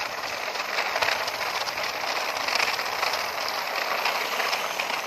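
Plastic toy dump trucks towed in a line over rough concrete, their plastic wheels and bodies giving a steady rattle.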